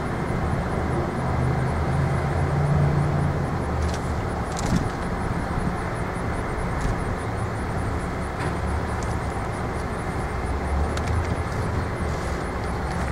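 Heavy hi-rail utility truck's diesel engine idling steadily while the truck stands on the rails.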